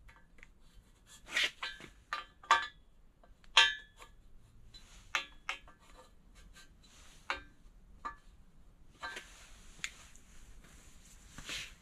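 Light metallic clicks and taps, some with a short ring, as a piston is pressed into the bores of an aluminium BMW N55 engine block to push the top compression rings down, one cylinder after another. A soft rustling noise comes near the end, then one louder click.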